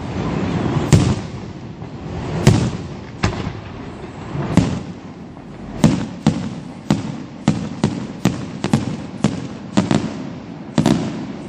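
Aerial firework shells bursting, each a sharp bang with a rolling echo after it. The bangs come every second or so at first, then quicken to two or three a second from about halfway.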